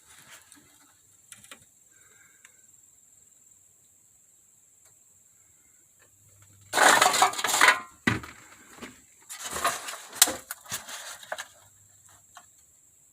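Clattering and crunching with clinks, in two bursts about seven and ten seconds in: old objects being handled and shifted about.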